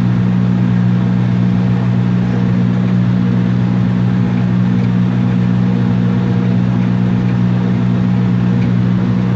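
John Deere 5083E tractor's four-cylinder diesel engine running at a steady speed under working load while raking hay: a constant, even drone with no change in pitch.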